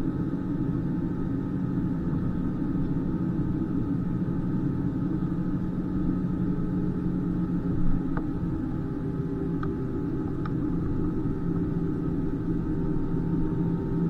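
Steady rumble and hum of an Airbus A320 airliner cabin, with several steady whining tones from the engines and air systems that shift slightly a little past halfway. A brief thump just before the middle.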